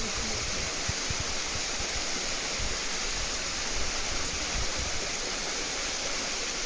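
Steady, unbroken rush of water from a mountain waterfall running down a rock face.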